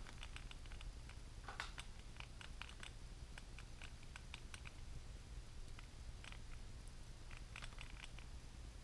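Faint, scattered small clicks and taps as a hex driver and the plastic and metal parts of a Blade 230S micro RC helicopter's rotor head are handled and fitted onto the main shaft.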